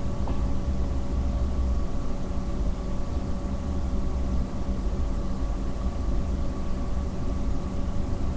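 Steady low rumble with a faint, even electrical hum, unchanging throughout; background noise of the recording rather than any distinct event.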